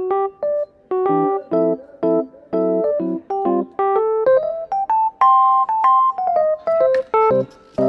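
Background music: a piano melody of short, quick notes over chords.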